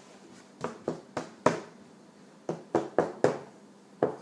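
Sharp taps of a hard object on a tabletop, in two quick runs of four with one more near the end.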